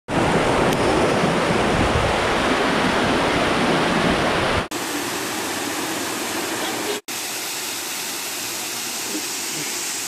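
Waterfall pouring over stepped rock ledges into a pool: a steady rush of water. It is louder and deeper for the first four and a half seconds, close to the falling water, then continues a little quieter after two brief dropouts.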